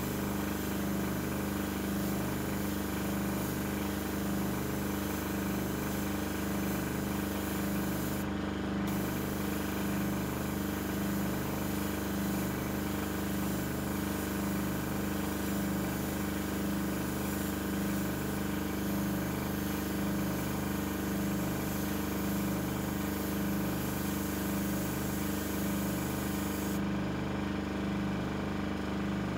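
Small airbrush compressor running with a steady hum, while the airbrush sprays aluminium paint with a hiss; the hiss stops briefly about eight seconds in and again near the end.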